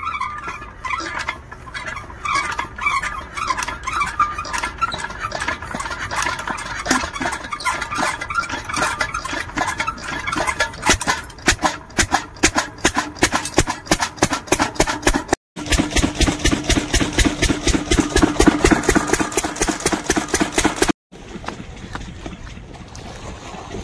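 A single-cylinder diesel irrigation pump engine is hand-cranked and starts, then runs with a rapid, even beat of exhaust pulses. Near the end the sound drops to a quieter, steady noise.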